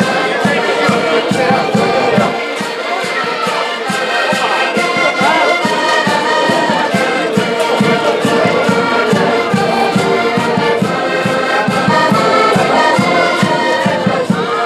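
Accordion ensemble playing a lively Portuguese folk tune in chords, with a bass drum keeping a steady beat underneath.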